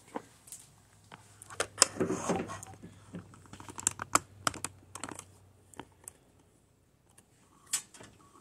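Irregular light clicks and taps with a short rustle about two seconds in, like handling noise and small hard parts being moved about; a faint steady hum stops about six seconds in.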